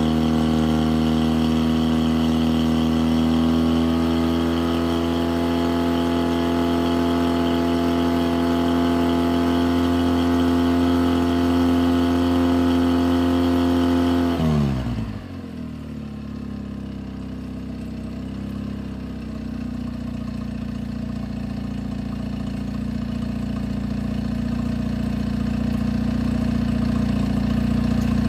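Mercury 9.9 outboard motor running on a garden-hose flush attachment after a cold start, holding a steady fast idle. About halfway through, the revs drop sharply within a second to a low idle, which then steadies and slowly grows louder.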